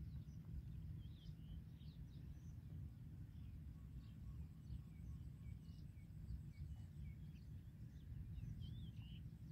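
Faint, scattered chirps of small birds over a steady low rumble.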